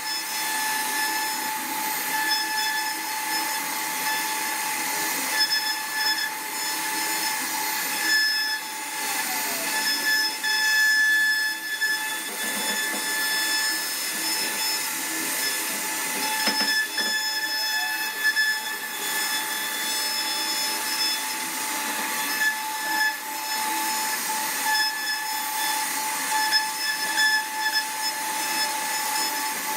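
CNC router spindle whining at a steady high pitch while its bit cuts wood, with a rough cutting noise underneath that swells and fades.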